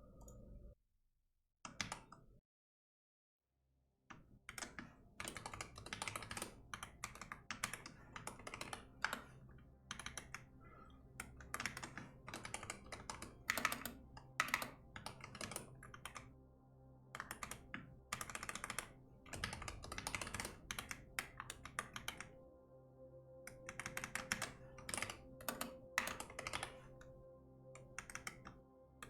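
Typing on a computer keyboard: fast runs of keystrokes with short pauses, over soft background music. The typing starts about four seconds in, after a brief silence.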